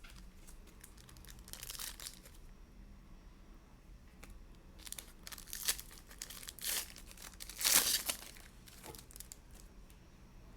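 A Donruss Basketball trading-card pack wrapper being torn open and crinkled, in several short crackling bursts, the loudest about eight seconds in.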